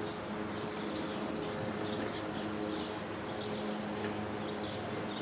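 Small birds chirping again and again over a steady low mechanical hum.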